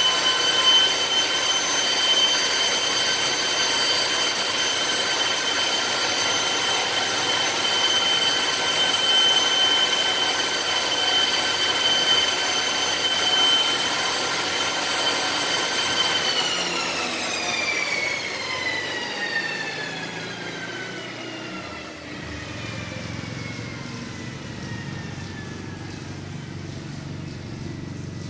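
Cessna Caravan's PT6A turboprop engine turned over on its starter for a compressor wash: a loud, steady high whine with several overtones. After about 16 s the whine falls steadily in pitch and fades as the compressor spins down.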